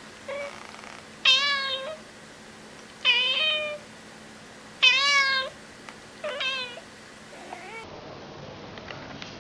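A domestic cat meowing repeatedly: about five meows in the first seven seconds, the three loudest each about half a second long and spaced roughly two seconds apart.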